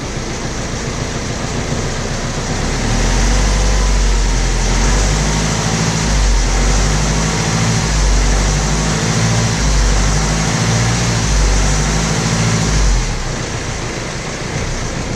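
BMW E92 3 Series 2-litre four-cylinder diesel engine running roughly just after starting, with an uneven pulsing low rumble that grows louder about three seconds in and eases near the end. The extra vibration and noise come from the timing chain, which the mechanic puts down to stretched timing chains.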